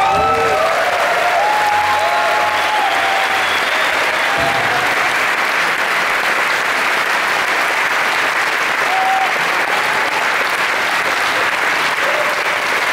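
Concert hall audience applauding and cheering loudly at the end of a song, with shouts rising over the clapping in the first few seconds and again briefly past halfway.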